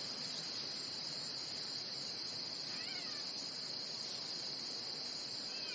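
Steady insect chorus, like crickets trilling, in a nature ambience bed, with a faint bird chirp about three seconds in.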